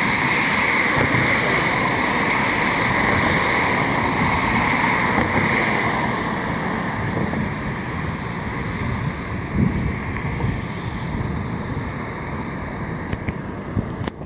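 Road traffic rushing past: a steady hiss of tyres and engines, loudest for the first several seconds and then slowly easing off.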